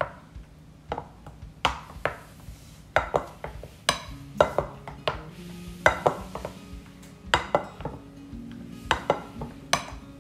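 Spatula folding whipped cream into mango purée in a bowl: soft scrapes and irregular knocks of the spatula against the bowl, roughly once a second. Quiet background music with held notes plays underneath.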